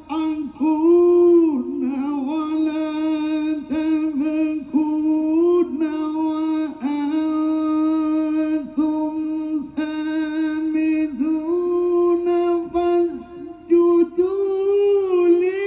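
A man's melodic Quran recitation (tilawah) into a microphone over a PA, drawn out in long held notes with wavering ornaments and a few short breaks for breath. The pitch rises a little near the end.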